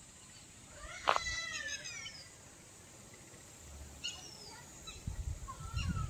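An animal calling: one loud drawn-out call about a second in that rises and then falls in pitch, followed by fainter short falling chirps, with a few low thuds near the end.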